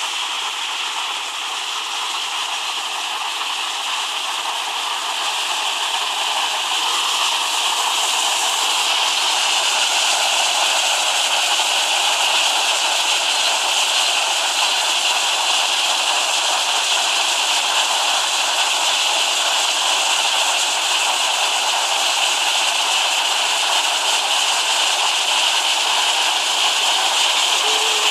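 Steady rush of river water pouring down a low cascade over rocks. It grows louder several seconds in, then holds steady.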